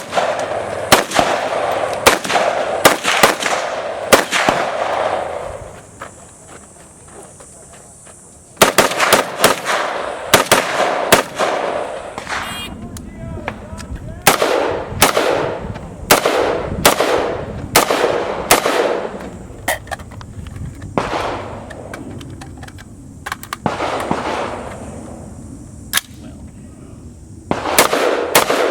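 Rapid strings of semi-automatic gunfire, several sharp shots a second, each with a short echo. The strings come in runs of a few seconds with pauses of a few seconds between them.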